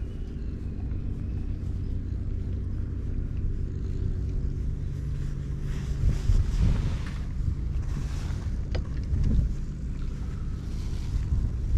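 A steady low hum, with gusts of wind noise on the microphone from about halfway through.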